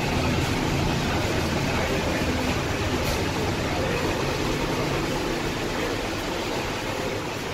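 Steady airport arrival-hall background noise: an even rumble and hiss with a faint low hum and no clear voices, easing slightly near the end.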